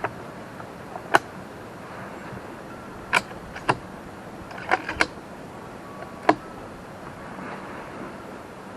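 About six sharp metallic clicks and clacks, spaced irregularly, from handling a Howa 1500 bolt-action rifle: loading 6.5 Creedmoor cartridges and working the bolt.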